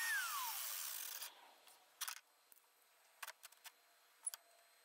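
A cheap wet tile saw's motor whine winds down, falling steadily in pitch and fading within about a second as the saw is switched off. A few light clicks and knocks follow as tile is handled on the saw's table.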